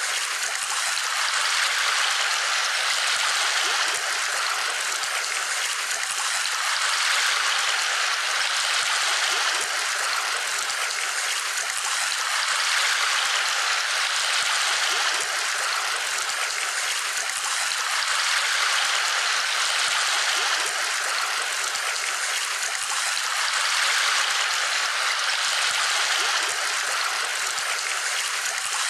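Steady rush of running water, swelling and easing slightly every five seconds or so.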